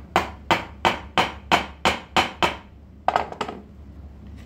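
Quick, evenly spaced metal tapping, about three strikes a second, eight in a row, then a short pause and two more, on a small part of an Abu Garcia Pro Max baitcasting reel held at a bench vise. The tapping knocks down a raised burr that was making the part stick.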